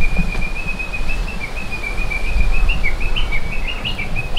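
A songbird singing: one long, high whistled note that slides slowly down, then a run of short notes stepping up and down. A steady low rumble of wind on the microphone lies underneath.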